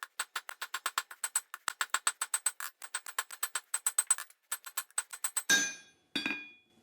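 Rapid, even hammer blows on hot leaf-spring steel over an anvil, about six a second, with a steady metallic ring, as the far side of the tong boss is forged down. A short pause, then two heavier ringing strikes near the end.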